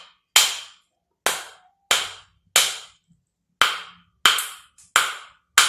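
A wooden pestle knocking eight times on the side of a spoiled, cracked dry coconut with no water inside, the knocks less than a second apart and each dying away quickly. The knock sounds damped, as if something were cushioning the impact: the sign that the rotting flesh has come loose from the shell and turned pasty.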